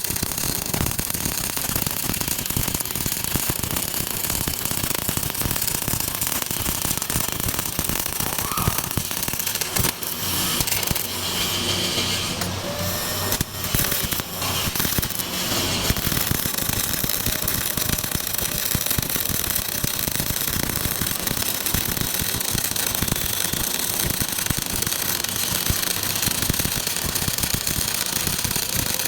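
Electric arc welding on hardened steel: a steady, dense crackle and sputter from the arc. The sound changes briefly, with a couple of short drops, about ten to sixteen seconds in.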